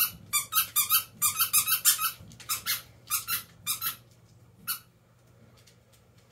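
A fast run of short, high-pitched squeaks in quick clusters of two to five that stops about two-thirds of the way in, with one last squeak shortly after.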